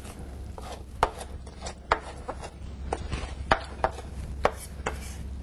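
Chef's knife mincing lobster tail meat on a cutting board: about ten sharp, irregular knife strikes, over a low steady hum.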